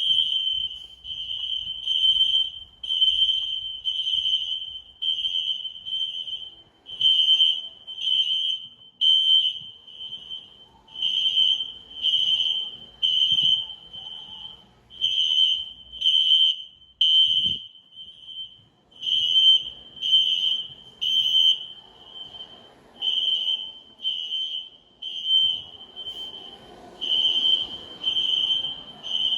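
System Sensor SpectrAlert Classic fire alarm horns sounding a loud, high-pitched tone in repeated pulses about once a second. The pulse pattern runs unevenly, which fits the testers' remark that one notification circuit is off from the other.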